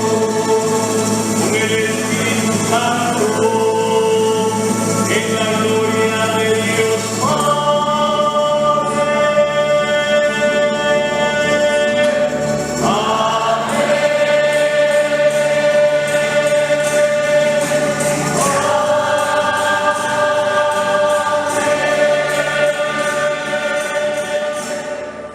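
Guatemalan church choir singing a hymn in long held chords, with the music fading out near the end.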